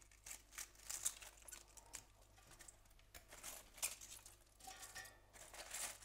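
Faint rustling and crinkling of fresh cabbage leaves as wedges are pulled from a bowl and laid into a stainless steel pot, with soft, irregular taps of handling and a brief faint ringing note about five seconds in.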